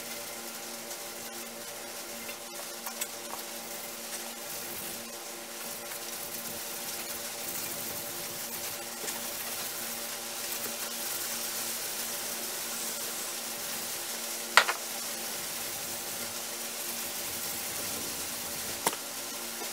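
Fine Scotch-Brite pad scrubbing back and forth along a cast-iron lathe bed's ways, a steady hissing scrape, rubbing off the oxide left after electrolysis cleaning. A sharp knock about fourteen seconds in, and a lighter one near the end.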